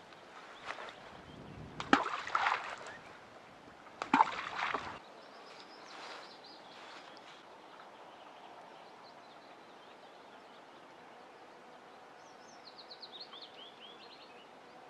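Close rustling and handling noises with two sharp knocks about two and four seconds in, as an angler baits a hook at a wooden table. Then quiet lakeside ambience with faint bird chirps and a short descending songbird phrase near the end.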